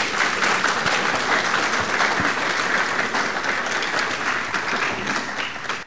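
Audience applauding: many hands clapping steadily, stopping abruptly near the end.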